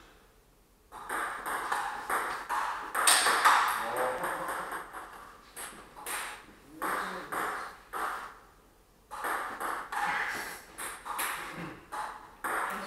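Table tennis rallies: the ball clicks sharply off bats and table in quick alternating hits. The hits come in two bursts with a short pause around the middle.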